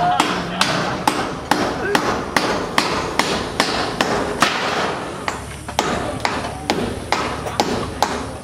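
Hammer blows at a steady pace, about three a second, driving nails while a wall of corrugated metal sheets is fixed to wooden posts.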